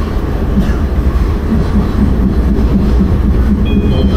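Metro train running between stations, heard from inside the carriage: a steady, loud rumble of wheels and running gear. A few brief high tones come in near the end.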